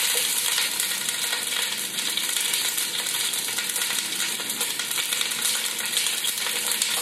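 Halved onions, shallots and thick slices of young ginger sizzling in very hot vegetable oil as they char: a steady hiss with fine crackling.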